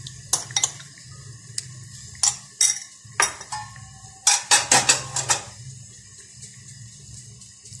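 Metal utensils clinking and tapping against a steel cooking pot, scattered sharp clinks with a quick run of them about four to five seconds in, over a steady low hum.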